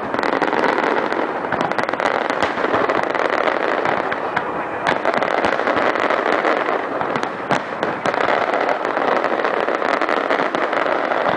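Fireworks display: a dense, continuous crackle of many small sharp pops, with a few louder bangs about five and eight seconds in.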